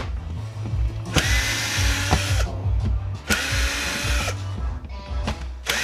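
Power drill run in three short bursts, each whine rising quickly in pitch as the motor spins up and then holding steady, with sharp metallic clicks between the bursts.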